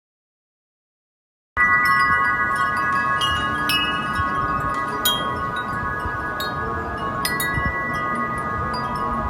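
After about a second and a half of silence, wind chimes start ringing: several sustained tones are struck again and again, over a steady background rush.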